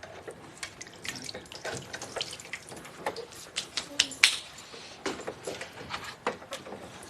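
Water running and splashing in a darkroom sink, with irregular sharp drips and plinks, the loudest about four seconds in.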